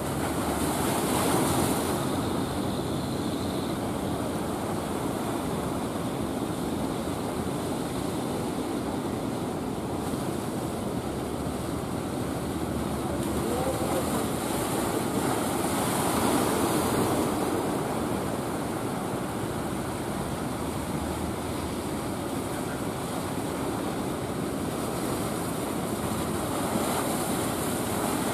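Sea surf and waves washing, with wind on the microphone; the noise swells about a second in and again around sixteen seconds.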